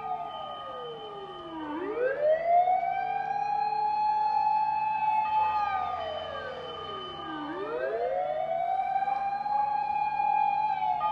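Fire engine sirens wailing in slow sweeps: the tone falls, rises back and holds twice, with more than one siren sounding over each other. They are the sirens of fire engines answering a fire.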